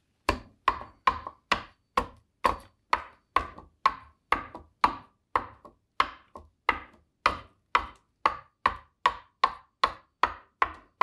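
Bowl adze chopping into green black walnut, hollowing a bowl: a steady run of sharp blows, about two to three a second, each with a short knock of the steel edge biting the wood.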